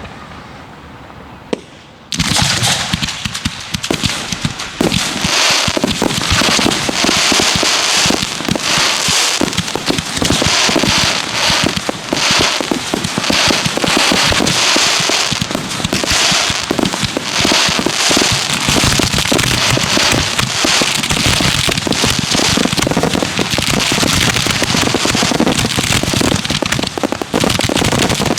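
Fireworks grand finale heard from close to the launch site. Dense, overlapping reports of shells firing and bursting in rapid succession start about two seconds in, after a fading echo, and keep going without a break.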